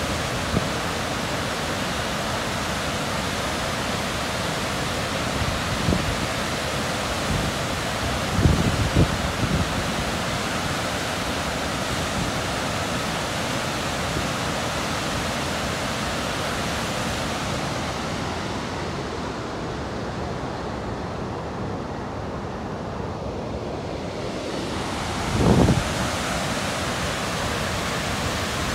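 Steady rushing roar of Steelhead Falls, a wide waterfall pouring into a churning plunge pool. Wind buffets the microphone with low rumbling gusts twice, about eight seconds in and near the end.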